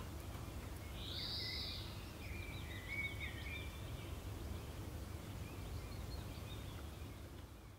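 Forest ambience: a steady low rumble with a few bird calls, one a quick warbling trill, about one to three seconds in. It fades out at the end.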